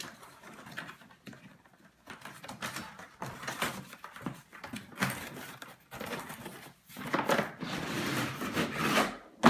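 Cardboard box being opened by hand: a tear strip ripped along the top flap, then the cardboard scraping and rustling as the box is tipped and handled, with a sharp thump near the end.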